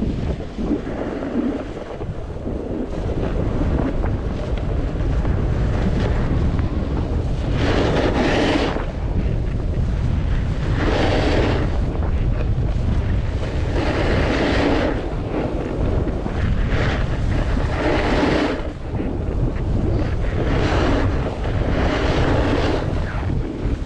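Wind buffeting the microphone of a skier's camera while skiing downhill, a steady low rumble. From about eight seconds in, the skis swish through the snow on each turn, about every three seconds.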